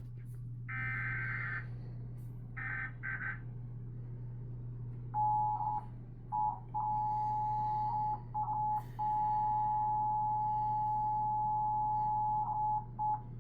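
Emergency Alert System weekly test tones from a TV. Two short bursts of the warbling SAME digital header data come first. About five seconds in, the two-tone EAS attention signal (about 853 and 960 Hz together) starts and sounds for about eight seconds, cutting out briefly several times. A low steady hum runs underneath.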